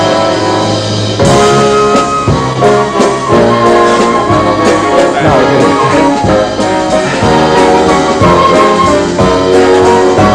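Upbeat brass band music with trumpets and trombones playing an instrumental break of the song, with no singing and a strong band entry about a second in.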